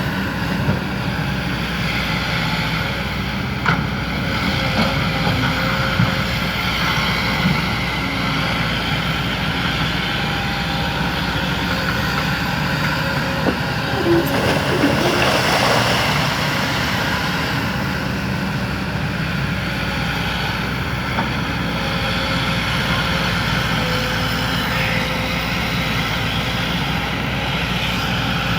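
Excavator's diesel engine running steadily while it works, with a few short knocks and a louder, noisier stretch about halfway through.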